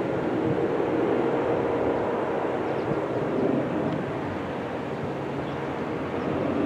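Diesel locomotive of an approaching intermodal freight train, a steady engine drone and wheel-on-rail rumble.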